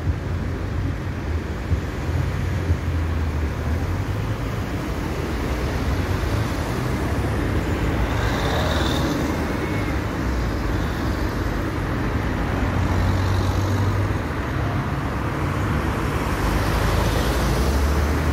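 Road traffic in a slow city queue: a steady low rumble of car engines idling and crawling, with a brief high-pitched sound about eight seconds in.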